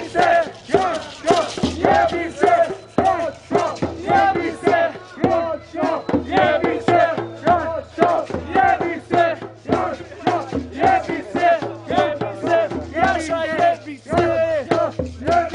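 Rhythmic chanting voices over music with a pulsing bass line.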